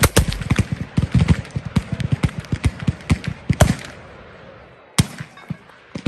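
Black-powder muzzleloading muskets firing along a line: a rapid string of overlapping shots for nearly four seconds, then single shots about five and six seconds in.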